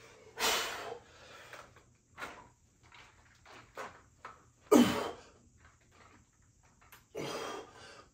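A man breathing out hard with each rep of a heavy dumbbell Arnold press: a run of short, sharp exhales one to two and a half seconds apart, the loudest about five seconds in.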